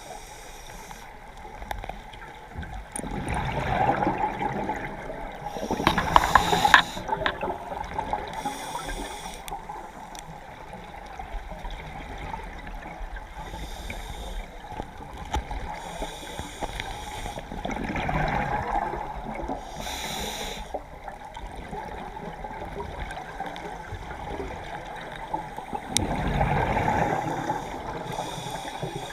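Scuba diver breathing through a regulator underwater: hissing inhalations and gurgling bursts of exhaled bubbles, a breath every several seconds.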